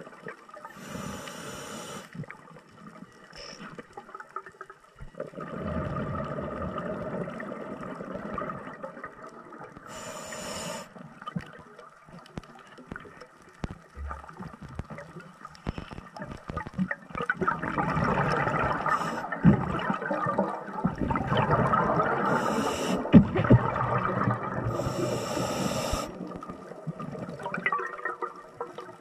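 Scuba diver breathing underwater through a regulator: short hissing inhalations and longer bubbling exhalations, the bubbling loudest in the second half.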